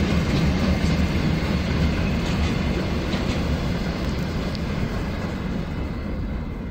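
Passenger train of n-Wagen coaches rolling away along the track, its wheel-on-rail rumble fading steadily as it recedes, with a few clicks over rail joints about two to three seconds in.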